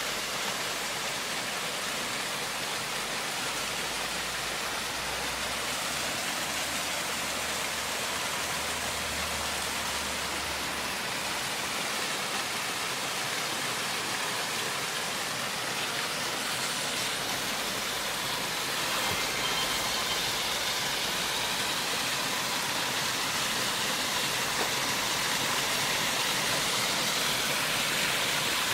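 Waterfall rushing steadily, a constant hiss of falling water that grows a little louder after about eighteen seconds.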